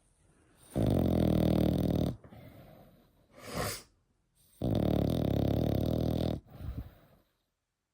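French bulldog puppy snoring: two long, loud snores about four seconds apart, each about a second and a half, with a softer, shorter breath between them.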